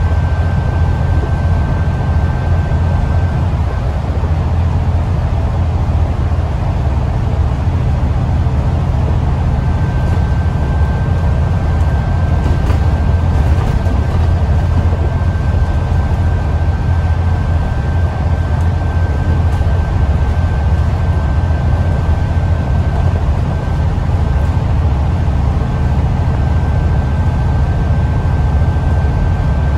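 Alexander Dennis Enviro400 MMC double-decker bus heard from inside the cabin while cruising along an open road: a steady low engine and road rumble. A faint high whine sits over it and drops out for a few seconds near the start.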